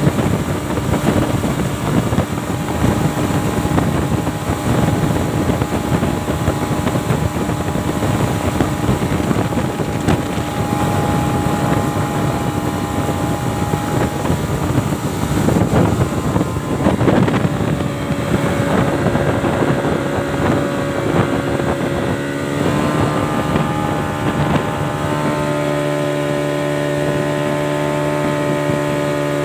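Yamaha 40 hp outboard motor running steadily at speed, pushing a speedboat heavily loaded with cargo, with wind and water rushing past. A bit after two-thirds through, the wind rush drops and the motor's steady hum comes through more clearly.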